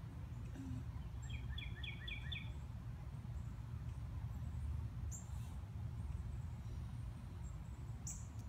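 A bird gives a quick run of about six short chirps about a second in, over a steady low rumble of background noise. Two brief faint scuffs come later.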